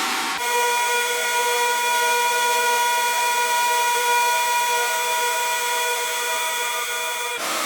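Vacuum cleaner running, a steady high motor whine over rushing airflow hiss. The sound changes abruptly to this whine about half a second in and switches back to a rougher rushing noise near the end.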